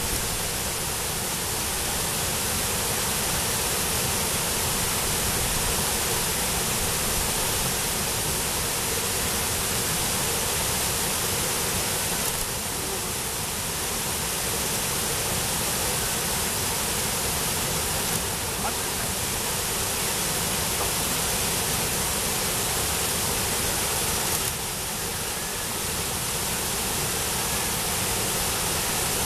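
Brooks Falls, a low river waterfall, pouring steadily: a dense, even rush of whitewater.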